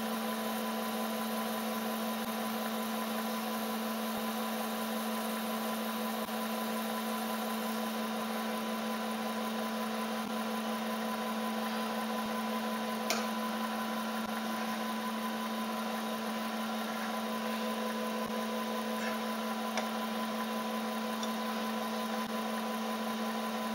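Milling machine running steadily, its motor and spindle turning a 5 mm carbide end mill with an even hum, while the cutter is dabbed into a sheared bolt in the cylinder's tensioner mounting hole. A few faint ticks come through about halfway and again a little later.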